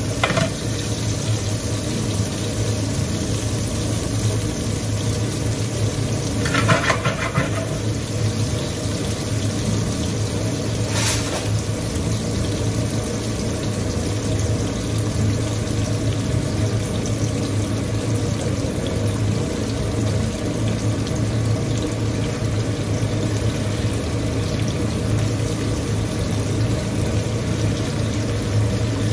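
Onions, tomatoes and peppers sizzling in a grill pan over a gas flame: a steady hiss over a low hum. Metal tongs clatter briefly about seven seconds in and click once about four seconds later.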